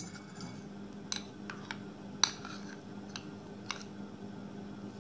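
A steel spoon clinks and taps against a glass mixing bowl and a ceramic bowl as ghee is spooned in: about six light, separate clinks, the loudest about two and a quarter seconds in, over a steady low hum.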